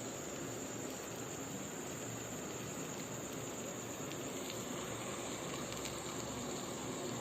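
A steady, even hiss with a constant high-pitched whine on top, and a couple of faint ticks in the second half.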